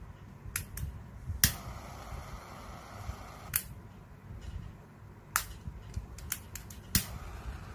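Piezo igniter of a Mastrad refillable butane kitchen blowtorch clicking as its trigger is pressed repeatedly to light it: about ten sharp clicks at uneven intervals, coming quicker in the last two seconds as the flame catches.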